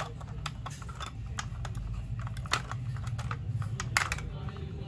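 Irregular small clicks and taps from a die-cast Mazda RX-7 model car being handled as its rear hatch and door are opened, the loudest click about four seconds in, over a steady low hum.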